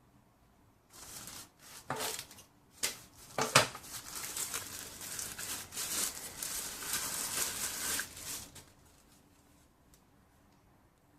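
Packaging being handled at close range: a few sharp clicks and knocks, then several seconds of plastic crinkling and rustling that stop about eight and a half seconds in.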